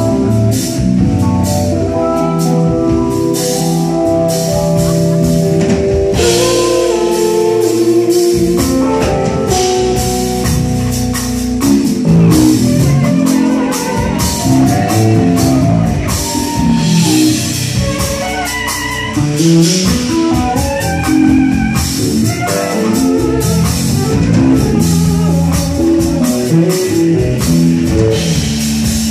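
Live band music from an electric bass guitar and a drum kit, with dense drum and cymbal hits under held and sliding bass notes, heard from within the audience.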